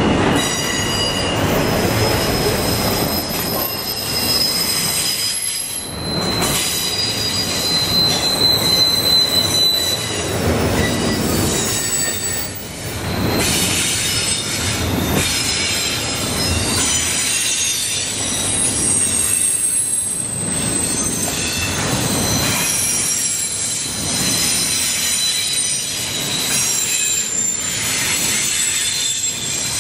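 Norfolk Southern double-stack intermodal freight train's container well cars rolling past, steel wheels on rail with high-pitched wheel squeal coming and going over the rumble. The noise dips briefly every few seconds as the gaps between cars go by.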